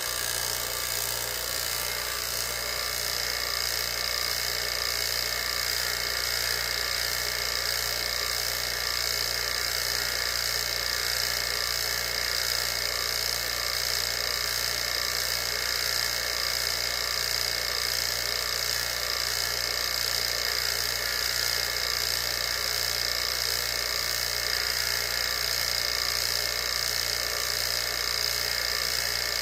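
HVAC vacuum pump running steadily, a constant motor whine with a high tone on top, pulling a vacuum while the micron gauge is tested.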